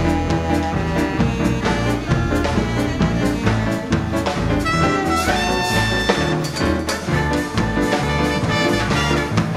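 Live dance band playing a 1930s–40s-style Latin/swing tune: trumpet, trombone and saxophone over a steady beat of drums, timbales and bass.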